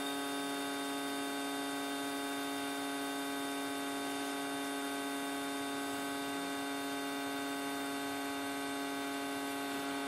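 Steady electric hum at a fixed pitch, unchanging throughout.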